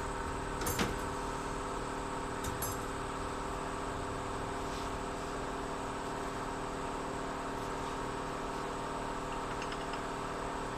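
A steady mechanical hum with a few light metal clinks, one about a second in and two quick ones a couple of seconds later, as gearbox parts are handled.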